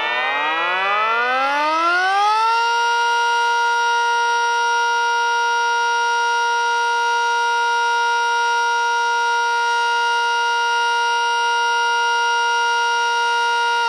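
Three miniature sirens, a Sterling M, an STH-10 and an ACA Banshee, sounding together. They wind up in rising pitch over the first two to three seconds, then hold several steady tones at once at full speed, and begin to wind down right at the end.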